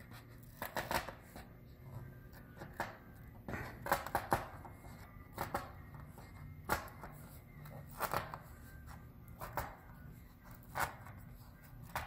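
Self-adhesive rubber foot strip being peeled off the underside of an HP 14 laptop: quiet, irregular clicks and crackles as the strong adhesive lets go.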